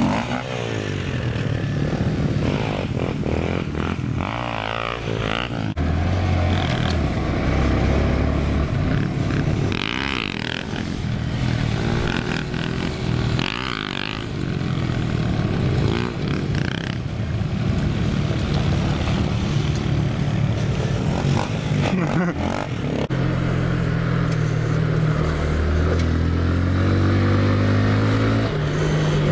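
Small single-cylinder mini motorcycle engines being ridden hard off-road, the pitch rising and falling as the throttle is worked and the gears change. Near the end there is a longer climbing pull.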